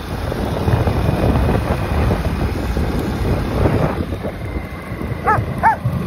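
Wind buffeting the microphone on a moving motorcycle, with the engine running underneath. Two short pitched calls, rising then falling, near the end.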